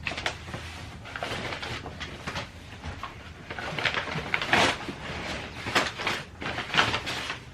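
Rummaging through a pile of belongings: irregular rustling, scraping and light knocks as bags, clothes and objects are pulled out and handled, over a faint steady low hum.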